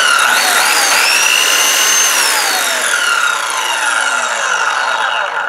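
New Ryobi circular saw run free without cutting: the motor and blade whine up to speed in about a second, run steadily, then coast down with a slowly falling whine for about three seconds until they stop. It is the saw's first test run after unboxing.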